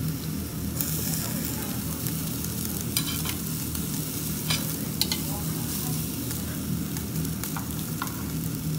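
Thin slices of beef rib loin sizzling on the wire mesh of a tabletop charcoal grill, over a low steady hum. A few sharp clicks of metal tongs against the mesh come about three, four and a half and five seconds in as the meat is moved.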